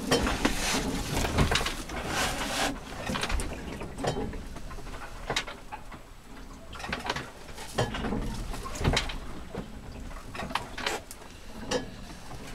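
Irregular creaks, knocks and rustles inside a small sailboat's cabin as the boat rolls in a swell.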